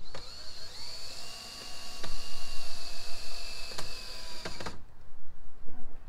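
Power drill working into a wooden post. Its whine rises as it spins up over the first second, holds steady, then cuts off suddenly about three-quarters of the way through. A few light knocks come along the way.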